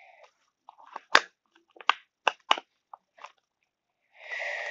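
Sharp plastic clicks and snaps, about five of them spaced irregularly, as a small orange plastic piece is pressed and fitted together by hand, then a short rustling scrape near the end.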